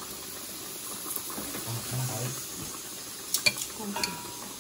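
Metal spoon and fork scraping and clinking against a ceramic bowl of hot pot soup, with a few sharp clinks about three and a half seconds in, one ringing briefly. A steady hiss sits underneath.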